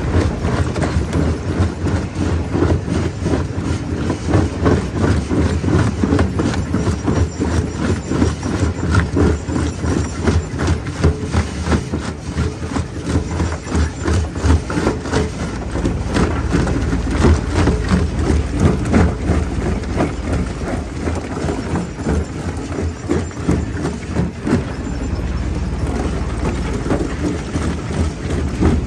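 Jaw crusher running and breaking rock: a steady low rumble under a dense run of irregular cracks and knocks, which thin out near the end.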